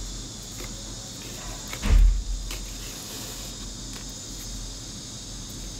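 Hand-stitching of a leather keychain: faint handling and thread-pulling sounds at the bench, with one dull thump about two seconds in, over a steady high-pitched hiss.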